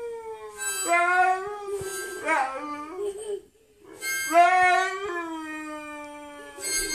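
A harmonica played in long held notes while a husky howls along with it, the two pitched sounds overlapping, with a short break about halfway through.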